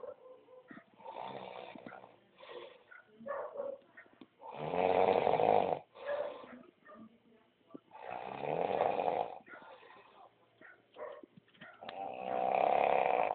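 A dog snoring in its sleep: three loud, drawn-out snores about every three and a half seconds, with quieter breaths and small snores between.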